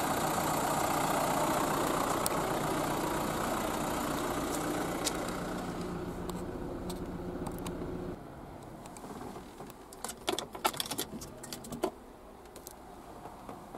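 An engine idling steadily with a low hum, which drops away sharply about eight seconds in to a quieter background. Then a cluster of sharp clicks and key jingling as a car key is worked in the ignition lock.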